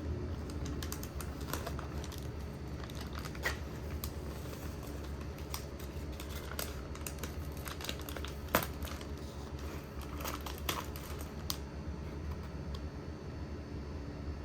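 Irregular small clicks and crinkling from objects being handled, loudest about three and a half seconds in and again around eight and a half and ten seconds, over a steady low hum; the clicks die away near the end.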